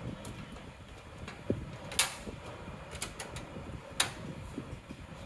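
Desktop PC case side panel being fitted back onto the chassis: a handful of sharp clicks, the loudest about two and four seconds in, with light scraping and handling between them.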